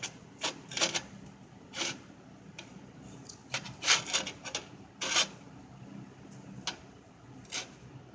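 Handling noise from a stone piece being turned and shifted by hand: a string of short, irregular scraping rubs, the loudest about four and five seconds in.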